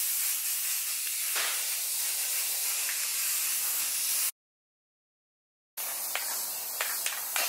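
Spray paint hissing from an aerosol can in a steady spray. It cuts off about four seconds in and starts again near the end, with a few light clicks.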